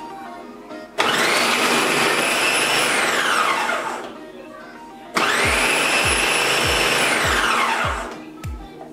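Bosch MultiTalent 3 MCM3501M food processor motor run twice in bursts of about two and a half seconds as food is pushed down the feed tube, each burst a loud steady whine whose pitch falls away as the motor spins down.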